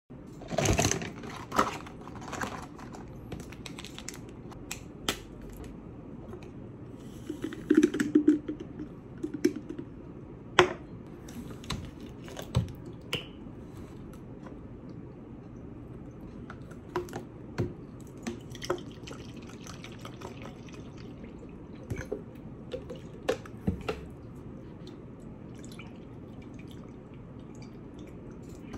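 Liquid poured and dripping into a glass flask, with scattered clicks and knocks of the bottle and glass being handled.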